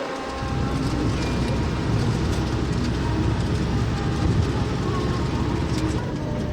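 Car road noise heard inside the cabin while driving on a highway: a steady low rumble of engine and tyres that sets in about half a second in and eases near the end.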